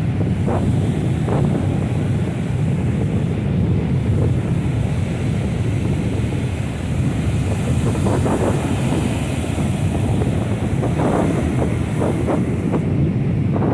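Ocean surf breaking and washing up a sandy beach, with strong wind rumbling on the microphone throughout; a few louder wave breaks come through in the second half.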